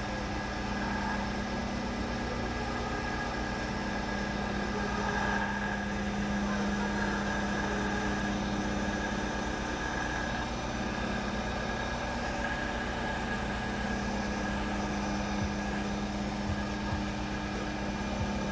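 Wood lathe running at a steady speed, spinning a wooden blank: a constant motor hum with a few steady tones and no sound of a tool cutting.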